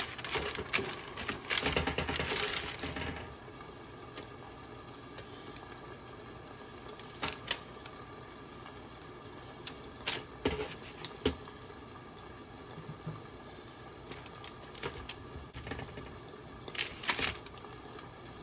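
Parchment paper rustling against a metal sheet pan for the first few seconds, then scattered light taps and rustles as raw bacon strips are laid out on the paper.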